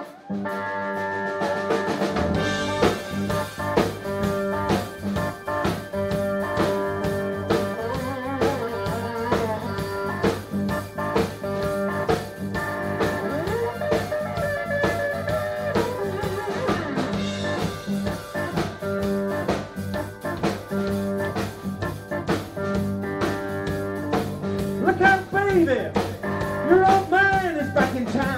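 Live blues band playing: a Stratocaster-style electric guitar leads with bent notes over drum kit, bass and keyboard. The full band comes in about two seconds in.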